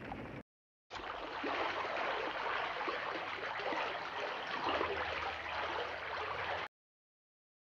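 Running water, a steady rushing like a stream, as a cartoon sound effect; it starts about a second in, lasts about six seconds and cuts off abruptly.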